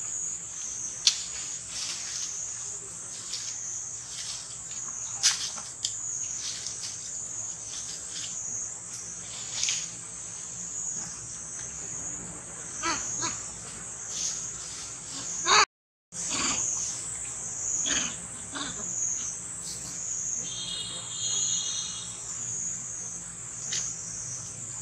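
Steady high-pitched drone of forest insects, with scattered light clicks and rustles. About fifteen seconds in, a short squeal from a macaque rises in pitch. Near twenty-one seconds there is a brief high call. The sound cuts out for a moment just after sixteen seconds.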